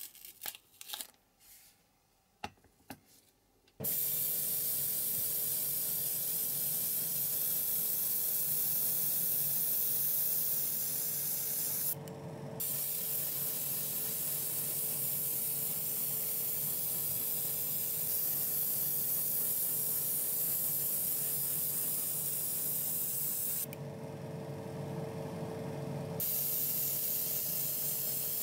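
Masking tape crinkling and being torn in short crackles, then an airbrush spraying paint in a long, steady hiss. The spraying stops twice, briefly about twelve seconds in and for a couple of seconds near the end, while a steady hum carries on underneath.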